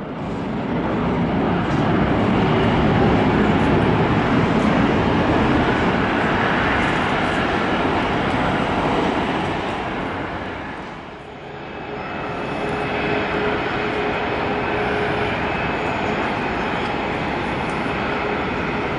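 Airbus A380's four jet engines running at taxi thrust as the airliner taxis past: a steady, loud jet roar. It dips briefly about eleven seconds in, then carries on with a steady whine over the roar.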